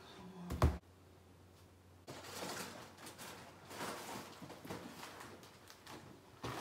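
A single thump about half a second in, then irregular rustling and light knocking of groceries being handled and put onto a cupboard shelf, with a jute shopping bag being lifted near the end.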